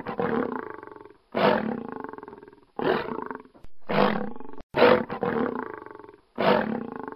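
Lion growling in a series of loud bursts, each starting sharply and fading away over about a second, repeated roughly every one to one and a half seconds.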